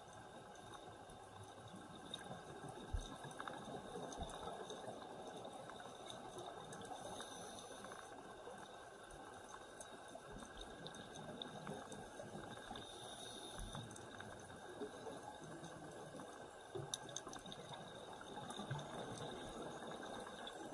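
Muffled underwater ambience: a steady bubbling, crackling hiss from scuba divers' exhaled air, with a few faint clicks.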